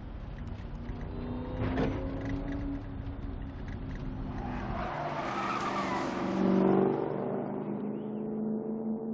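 Ford Mustang Shelby GT500 V8 running under way, its engine note steady, with a tyre skid and squeal swelling up for a second or two just past the middle.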